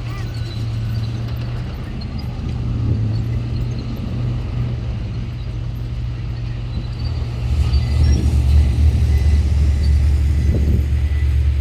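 Komatsu GD655 motor grader's diesel engine running steadily, louder and deeper from about two-thirds of the way in as it takes more load.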